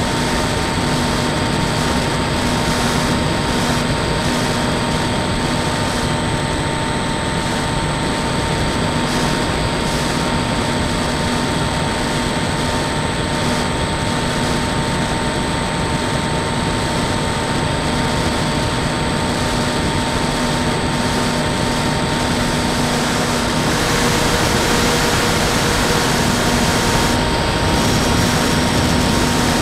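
Bixler 2 RC plane's electric motor and propeller in flight, heard from its onboard nose camera: a steady whine under heavy rushing wind. The wind noise swells for a few seconds about three-quarters of the way through.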